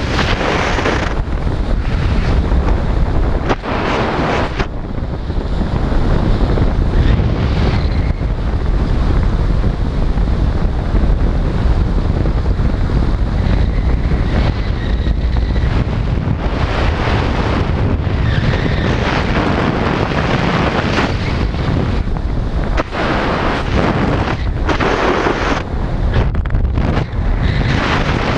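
Wind rushing over the microphone of a camera worn by a skydiver gliding under an open parachute: a loud, steady rumble, with brighter gusts swelling every few seconds.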